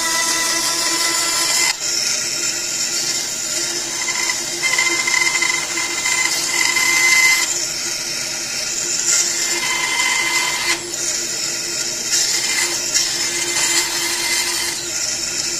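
Bandsaw running and cutting small blocks of wood into plugs: a steady motor hum with a high tone, and a hissing cutting noise that swells and eases every few seconds as pieces are fed through the blade.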